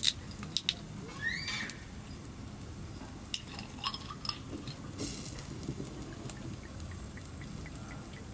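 Duck meat sizzling on a small stainless tabletop charcoal grill, with scattered pops and ticks from the cooking fat and a brief swell of hiss about five seconds in. A short rising squeak sounds about a second in.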